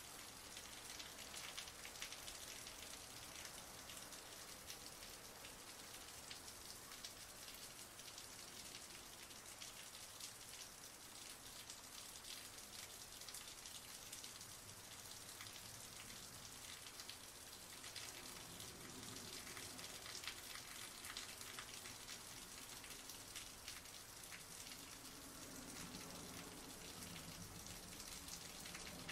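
Heavy rain falling: a steady, dense hiss of drops, with individual drop hits ticking through it.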